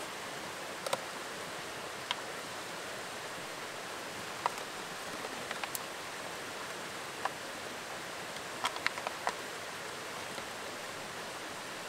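Steady rushing of a brook, with scattered light clicks and taps as food packages are handled on a table, several close together about halfway through and again near the end.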